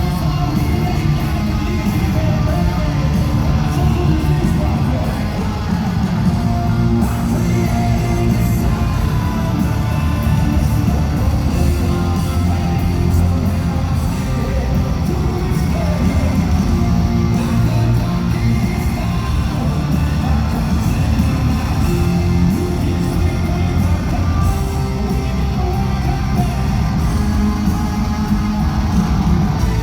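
Live hard rock band playing loudly: distorted electric guitars, bass and drums with a singer, recorded from the crowd at a concert.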